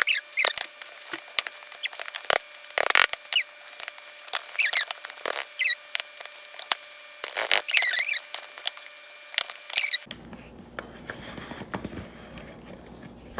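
Metal spatula scraping and prying inside a bread-maker pan to free a stuck loaf: short, high, warbling squeaks with clicks and knocks. The squeaking stops about ten seconds in.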